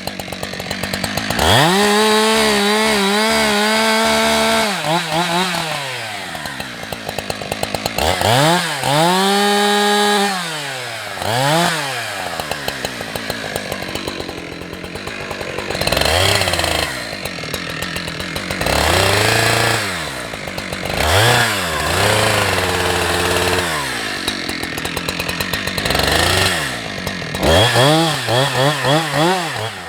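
Husqvarna 365 two-stroke chainsaw revving: twice it climbs to full throttle, holds for a couple of seconds and drops back to idle. Through the middle the pitch runs lower and wavers, as when the chain is cutting into the trunk during felling cuts. Quick throttle blips come near the end.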